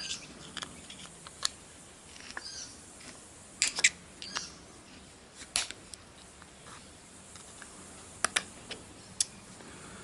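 Small metal clicks and scrapes at irregular intervals as a steel Spirolox wrist-pin retaining clip is picked and pried at in a piston's pin bore. The loudest clicks come in a quick cluster about four seconds in and as a pair near the end.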